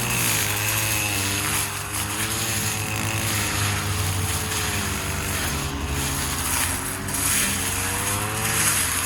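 Stihl FS 250 two-stroke brushcutter running at high revs. Its engine pitch dips and rises again and again as the blade meets the grass.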